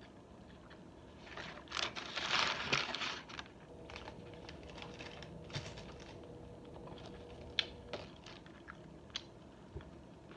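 Close-up eating sounds: a loud crunchy burst about two seconds in, then chewing with scattered small mouth clicks, from a person eating a fried chicken sandwich.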